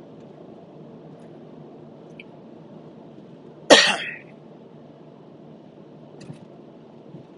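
A person coughs once, sharply, about halfway through, over the steady road and tyre noise inside a moving car's cabin.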